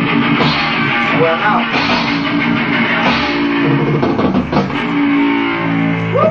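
Rough live rock jam led by an electric guitar, with a few sharp drum-like hits, played loud in a small room.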